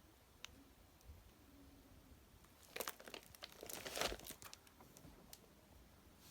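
Packaging crinkling and rustling as it is handled, in two short spells about three and four seconds in, with a few faint clicks around them.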